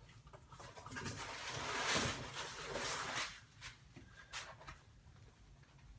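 Skateboard deck packaging being torn open and rustled: a noisy rasp that builds over about two seconds and then fades, followed by a few light clicks and taps.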